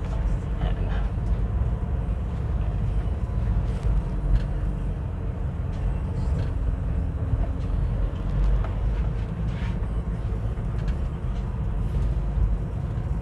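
A road vehicle running with a steady low rumble of engine and road noise, with light rattles and clicks over it.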